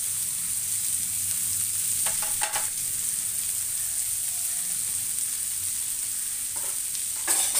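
Freshly added chopped onions sizzling in hot oil in a stainless steel pan, a steady frying hiss. A few short knocks sound about two and a half seconds in and again near the end.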